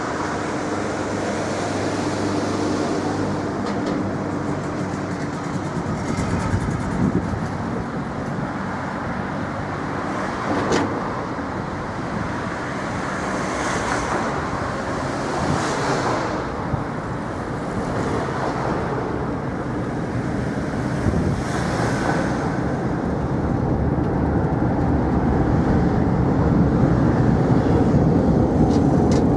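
City road traffic: vehicles passing and running in a steady wash of noise, with a few short sharp knocks. It grows louder near the end.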